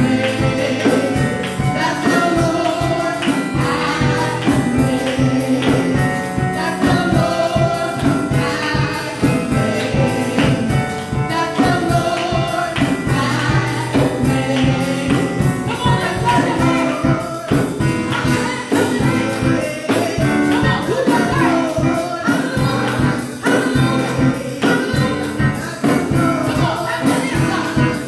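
Live gospel worship music: a choir singing over a steady beat with a tambourine shaken and struck throughout.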